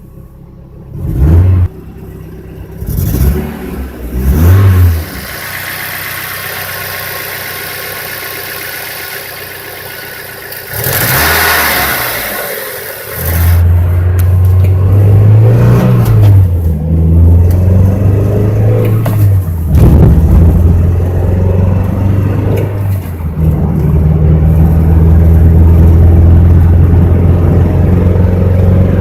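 1999 Mazda Miata's 1.8-litre four-cylinder engine, first blipped in a few short revs, then running steadily, then pulling louder with its pitch rising and falling. It has a cylinder 2 misfire under more than a quarter throttle, traced to a bad coil pack.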